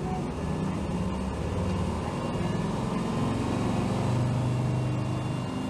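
Hino Rainbow HR city bus with its 7.7-litre inline-six diesel running under way, heard from inside the passenger cabin: a steady engine drone over road noise that strengthens and rises slightly in pitch partway through.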